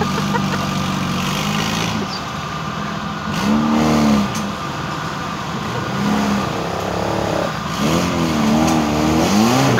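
Lada Niva's engine running under load off-road, revving up about three and a half seconds in and again, wavering and rising, over the last two seconds.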